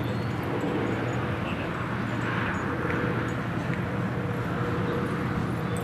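Steady low outdoor rumble with a faint steady hum, no distinct events.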